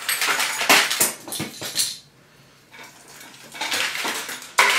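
Broken plastic and metal pieces of a smashed CRT TV and clock radio clattering and rattling as hands pull through the wreckage. A dense run of rattling, a short pause about two seconds in, then more rattling ending in a sharp click near the end.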